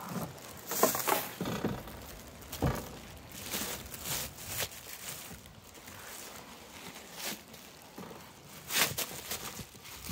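Large clear plastic bag crinkling and rustling in irregular bursts as it is pulled up and off a boxed air fryer oven.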